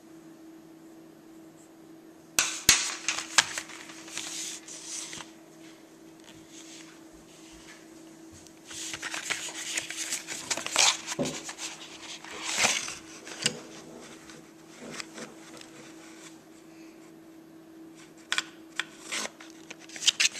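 Close handling noise as a cardboard pencil box and pencils are picked up and moved about on a glass tabletop: rustling, scraping and clicks. It comes in two bursts, a couple of seconds in and again from about nine to thirteen seconds in, with a few clicks near the end, over a faint steady hum.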